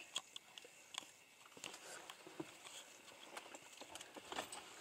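Faint, scattered twig cracks and leaf rustles from an African elephant browsing in thorny acacia bush close by.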